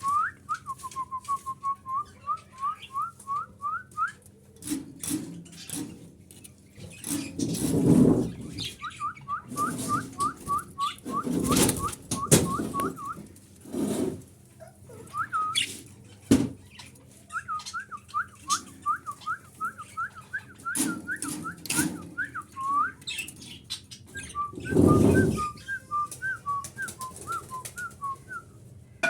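A cage bird repeating quick, high whistled notes, about four or five a second, in several spells of a few seconds each. Louder rustling or flapping bursts come in between.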